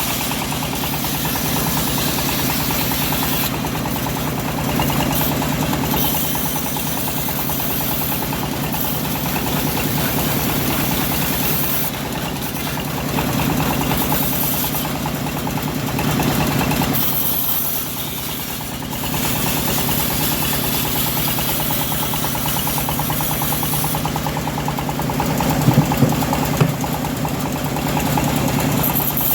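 The engine of a homemade bandsaw mill running steadily as it saws teak, with its level dipping briefly about two-thirds of the way in. A few sharp knocks come near the end.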